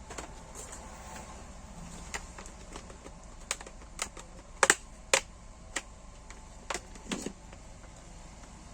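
Irregular sharp plastic clicks and taps as a laptop screen's housing is worked loose by hand, the loudest a quick pair about halfway.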